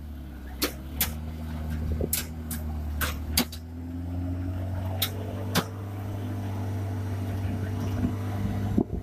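Steady low mechanical drone, like an engine running, with about eight sharp clicks and knocks scattered through the first six seconds.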